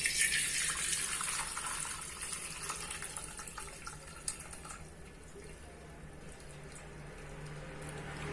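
Curdled milk and whey being poured through a cotton cloth in a strainer, the liquid splashing steadily into the vessel below. It is loudest at first, then dwindles to a faint trickle after about five seconds as the pour slows and the whey drains.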